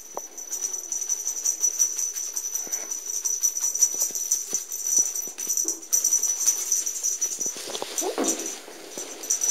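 A cat wand toy jingling and rattling rapidly as two young cats bat and pounce on it, with thumps and scuffles on carpet that are heaviest about eight seconds in.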